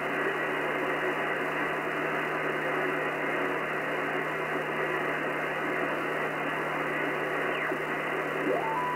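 Shortwave receiver tuned around 27.9 MHz giving out steady static with a low hum under it. Near the end a brief whistle rises in pitch.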